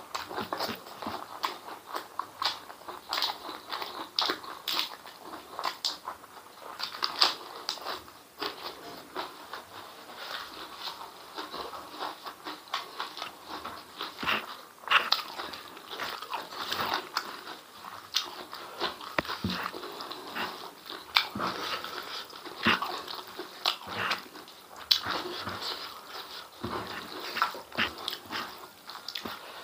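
Close, wet chewing and lip-smacking of a person eating chewy beef and chicken intestines with rice by hand, with many quick irregular clicks and crunches.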